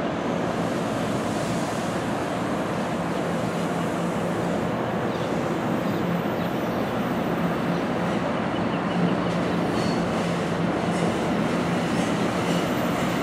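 NJ Transit Multilevel commuter train rolling past, a steady rumble of wheels on rail with a faint low hum underneath.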